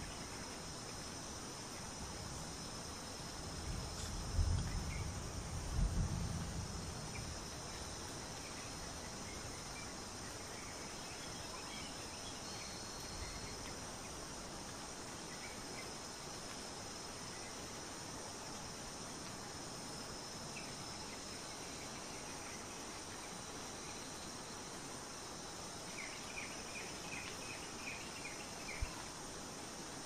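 Forest ambience: a steady drone of insects with scattered faint bird chirps, and a quick run of chirps near the end. Two low rumbles come about four and six seconds in.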